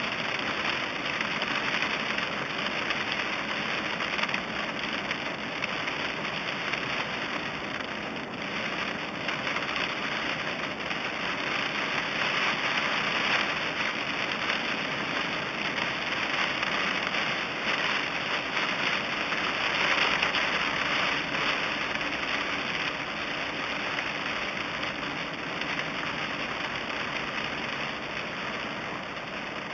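Heavy rain drumming on a moving car's roof and windshield, heard inside the cabin, over the hiss of tyres on the wet road. The rain swells and eases a little.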